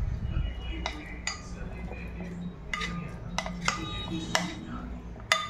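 A metal spoon stirring a thick spice marinade in a glass dish, clinking and scraping against the glass in a series of sharp, irregular clinks.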